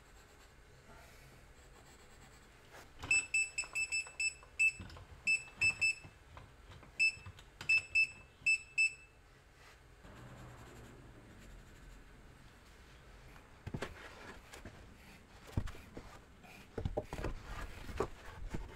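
Green cross-line laser level beeping in quick, irregular runs of short high beeps, the warning such levels give when tilted out of their self-levelling range. Near the end come a few knocks and shuffling.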